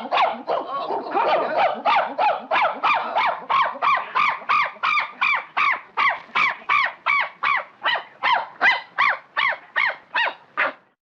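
Monkey call sound effect: a long, even run of short pitched calls, about three a second, each rising and falling in pitch, cutting off shortly before the end.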